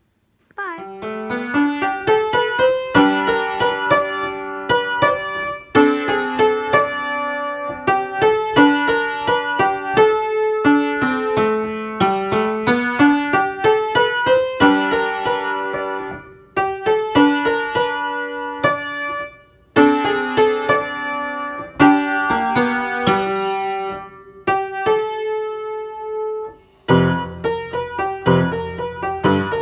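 Piano music: a bright tune of quick notes in phrases with short breaks, starting about half a second in, with lower bass notes joining near the end.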